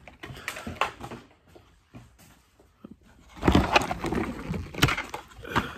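Toy packaging being torn open and handled: a few sharp clicks and crackles, a short near-quiet pause, then about two seconds of louder rustling and knocking.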